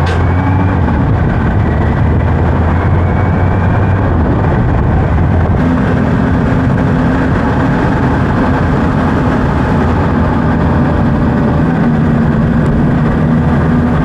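Kawasaki Z H2's supercharged inline-four engine running while the motorcycle is ridden, with wind rush over the microphone. The engine note steps up to a higher pitch about five seconds in.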